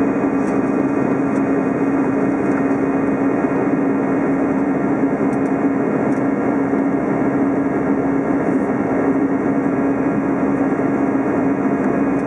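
Steady cabin noise of an Airbus A320 climbing after take-off: engine and airflow noise with a steady low hum through it.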